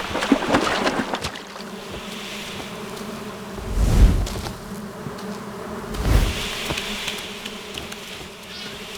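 A dense swarm of brine flies buzzing in a steady drone, with two low whooshing swells about four and six seconds in.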